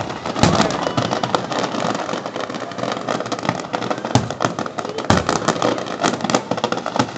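Fireworks display: a continuous crackle of many small bursts, with heavier booms from aerial shells about half a second in and again around four and five seconds in.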